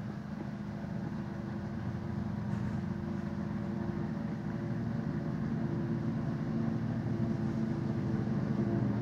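Steady drone of an engine or motor running, growing slightly louder.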